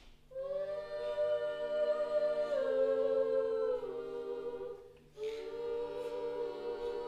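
Unaccompanied voices singing long held notes together, shifting pitch in steps, in two phrases with a short break about four to five seconds in.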